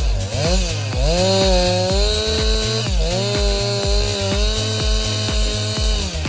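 Chainsaw engine running at high revs, its pitch dipping and climbing back as the throttle is eased and opened again twice, over background dance music with a steady beat.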